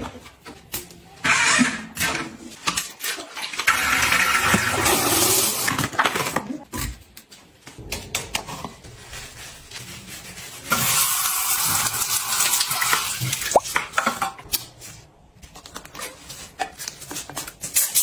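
Scrubbing and wiping in bursts of a few seconds: a small bristle brush scrubbing the narrow gaps of a toilet, then a cloth with cleaning paste rubbed over a chrome shower mixer, with small knocks and clicks in between.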